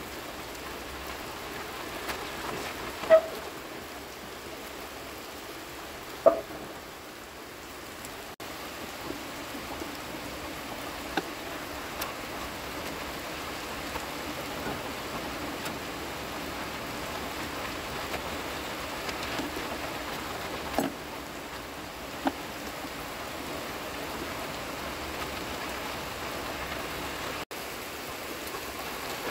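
Steady hiss of rain falling, with a few sharp clinks of something being handled, the loudest about three and six seconds in.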